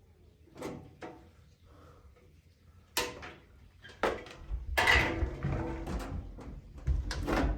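Handling noise: a series of sharp knocks, clicks and clatter that start about three seconds in and grow busier and louder toward the end, some of them ringing briefly like sheet metal.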